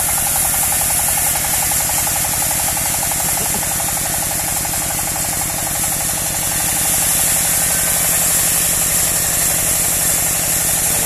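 Engine of a trailer-mounted portable bandsaw sawmill running steadily, with a fast, even beat.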